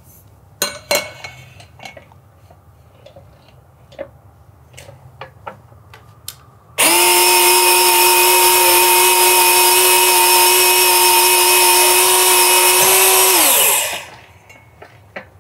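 Light knocks and clicks as copper pipe is set into the roller cradle of a REMS Cento 22 V cordless pipe cutter. About seven seconds in, the motor starts suddenly and runs with a steady high whine and hiss as the slow-turning cutter wheel drives the pipe round and cuts it, then winds down with a falling pitch near the end.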